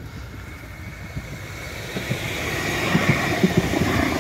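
Tram passing close by, growing louder as it approaches, with a run of low clacks from its wheels on the rails.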